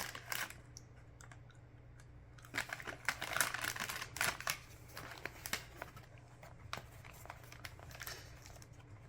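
Crunching and chewing a baked pretzel honey butter crisp snack: irregular crisp cracks, busiest from about two and a half to four and a half seconds in.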